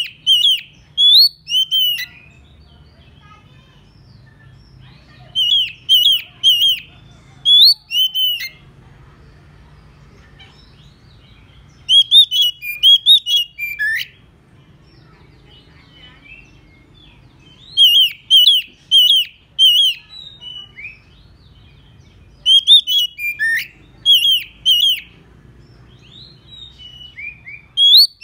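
Oriental magpie-robin singing its excited challenge song, used as a decoy to call rival magpie-robins. The song comes in bursts of loud, rapid, repeated whistled notes every few seconds.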